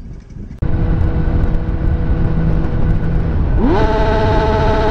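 After a brief quiet moment, a sport motorcycle's engine runs steadily at highway speed with wind rushing over the helmet microphone. Near the end the engine revs up quickly to a higher pitch and holds there.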